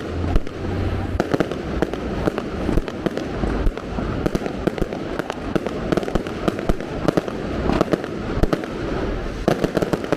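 Fireworks going off in the street: a rapid, irregular run of sharp cracks and bangs over a constant rumble.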